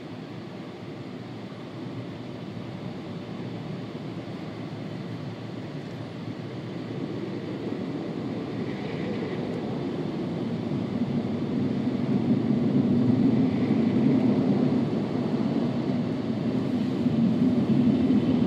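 Automatic car wash drying blowers running, heard from inside the car's cabin: a steady rushing noise that grows steadily louder as the car is pulled toward them.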